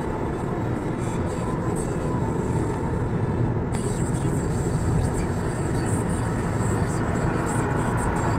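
Steady road and engine noise of a car cruising on a highway, heard from inside the cabin.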